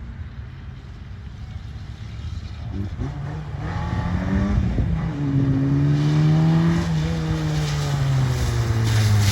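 Renault Twingo's small petrol engine revving hard: the pitch climbs from about three seconds in, dips briefly around five seconds, climbs again, then holds high and slowly falls away toward the end.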